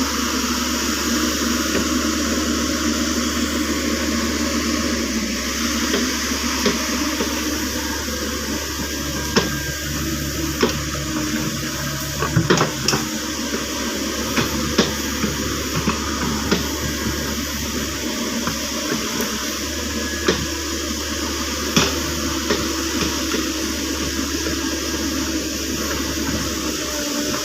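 Caterpillar 307.5 mini excavator running steadily under a constant water-like rush as the bucket works a flooded ditch in peat, with scattered sharp knocks from about six seconds in.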